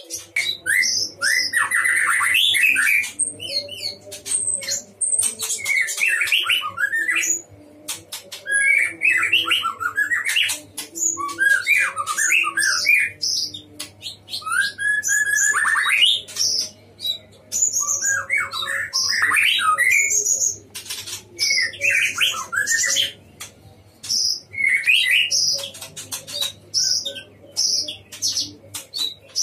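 Male white-rumped shama (murai batu) in full, continuous song: rapid varied whistled phrases mixed with sharp clicking notes, broken by short pauses.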